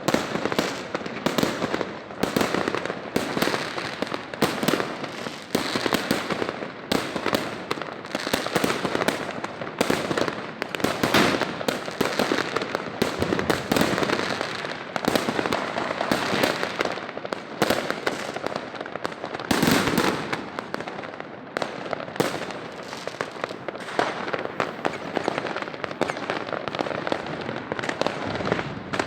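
Fireworks going off: a dense, continuous stream of bangs and crackling reports, with a few louder bangs standing out.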